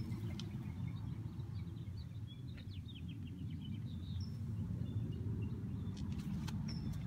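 Outdoor ambience: a steady low background rumble with small birds chirping, a quick run of chirps in the middle and a couple of short high whistles.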